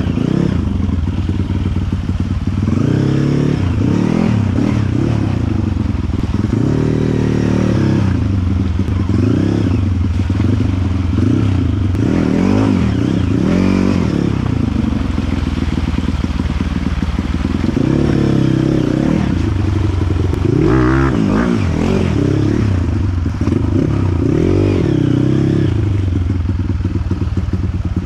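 Dirt bike engine revving hard and unevenly off-road, its pitch rising and falling again and again as the throttle is opened and closed.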